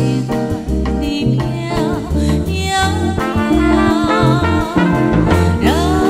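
Background music with a bass line stepping from note to note and a wavering melody line over it.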